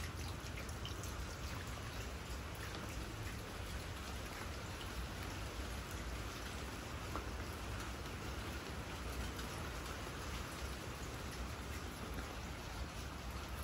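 Heavy rain falling steadily, with scattered drops ticking close by.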